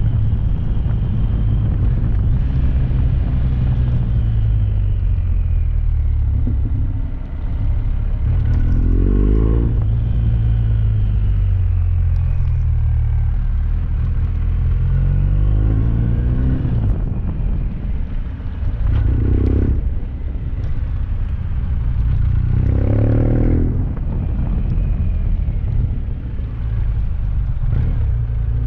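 BMW R 1250 GS boxer-twin motorcycle engine running under way with a heavy low rumble. The revs climb and drop off several times as the bike accelerates through the gears.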